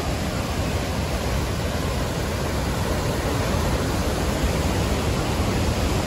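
Fast floodwater rushing through rocky rapids below a dam's open spillway gates: a steady, even rush with a heavy low rumble.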